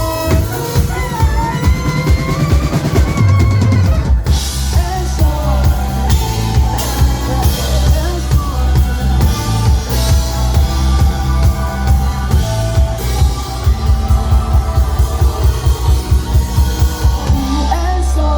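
Live rock band playing an instrumental passage: a drum kit keeps a busy beat under melodic lines and heavy bass. About four seconds in there is a short break, after which the band comes back in with a held low bass.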